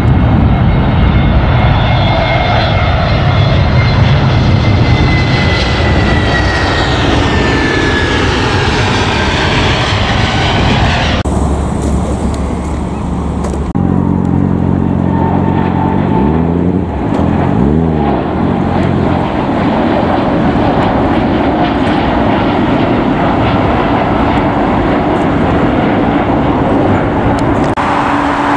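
Jet airliner engines on final approach passing close by, a loud roar with a high whine that slides down in pitch over the first ten seconds. After abrupt cuts about eleven and fourteen seconds in, steadier jet engine noise continues from aircraft farther off on the airfield.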